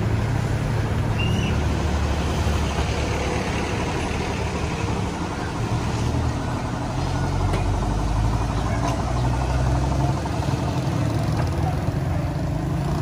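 A motor vehicle's engine running steadily at idle, a low hum that rises and falls a little in pitch.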